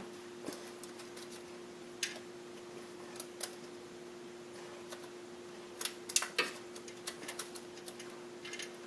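Scattered sharp clicks and clinks of hand tools at work on the car, with a quick cluster about six seconds in, over a steady hum.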